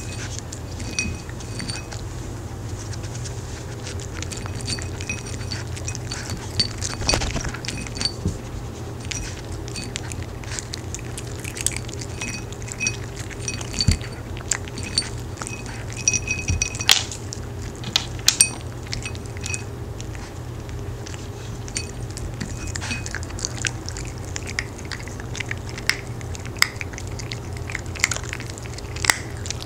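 Maltese dogs eating crunchy homemade sweet potato cookies off a ceramic plate: irregular clinks and taps of cookies and muzzles against the plate, a few sharper knocks among them.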